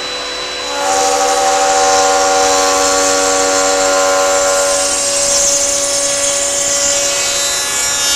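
Table-mounted router running with dust extraction, its bit cutting a channel along a wooden drawer part fed past the fence. The sound gets louder and fuller about a second in as the bit takes the cut, holds steady, then drops away abruptly at the end.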